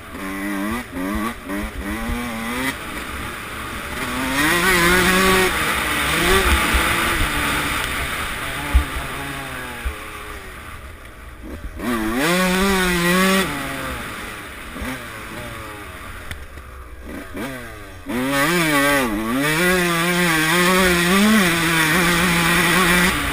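Suzuki RM144 two-stroke motocross bike engine ridden hard, revs climbing and falling as the throttle is opened and shut through the gears, with quieter off-throttle lulls between bursts. Heard from the rider's helmet, with a sharp knock about nine seconds in.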